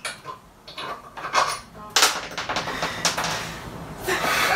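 Handheld power tool working on a bus seat's mounting bolts: a few sharp metal knocks, then about two seconds of rapid rattling hammering.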